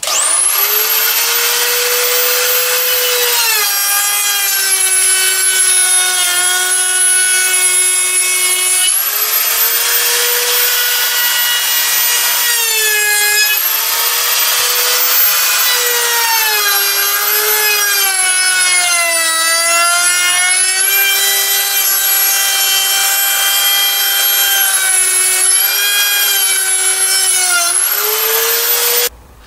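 Handheld electric router starting up and cutting a lip along the edge of a wooden strip, running with a high whine. Its pitch drops each time the bit bites into the wood and rises again as the load eases, several times over, and the motor is switched off near the end.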